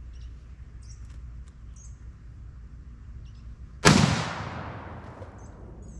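A single rifle shot from a sporterized Remington M1903A3 bolt-action rifle chambered in .30-06, firing 150-grain ammunition, about four seconds in. The sharp report dies away over about a second and a half.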